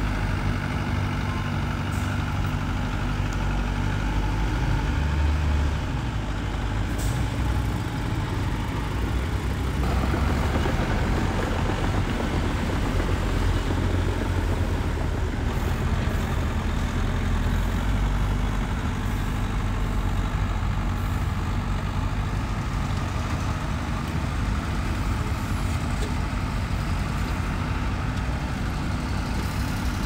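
Heavy construction machinery, a bulldozer or dump truck, with its diesel engine running steadily, its low engine note dominant. The sound shifts about ten seconds in.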